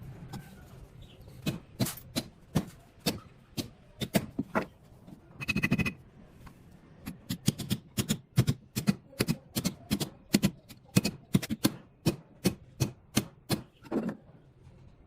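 Repeated sharp knocks, irregular at first, then steady at about two to three a second through the second half. A short rattling buzz comes about five and a half seconds in.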